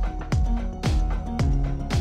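Background music with a steady beat, about two beats a second, over sustained held tones.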